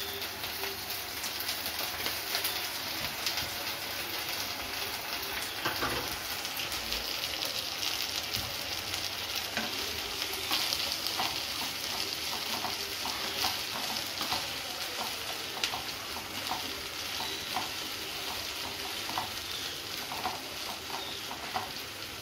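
Ginger-garlic paste and sliced onions sizzling in hot oil in a nonstick kadai while being stirred with a wooden spatula, sautéed to cook off the paste's raw smell. From about halfway through, the spatula's strokes add repeated short knocks and scrapes against the pan over the steady sizzle.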